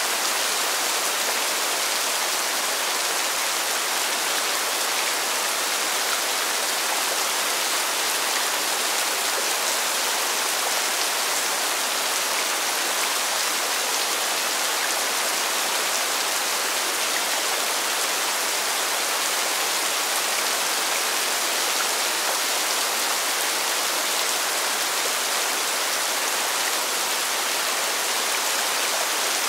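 Steady rain falling on pavement: an even, unbroken hiss.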